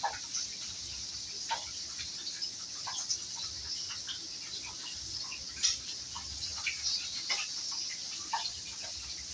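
Hot cooking oil sizzling steadily in a frying pan, with scattered crackles and pops.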